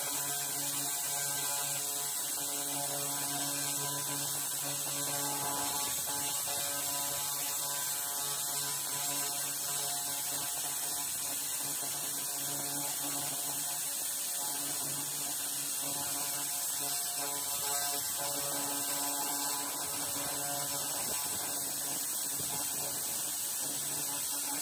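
300 W pulsed laser cleaner running as it strips paint and rust off bare metal: a steady electrical hum with a high hiss over it.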